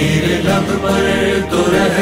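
Male voices singing a devotional manqabat, with a lead singer and a backing vocal chorus.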